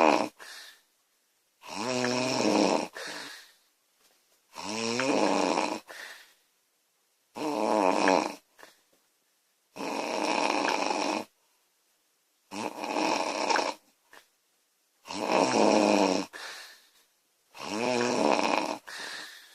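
A woman snoring loudly and regularly, about seven buzzing snores a few seconds apart, each followed by a short softer breath.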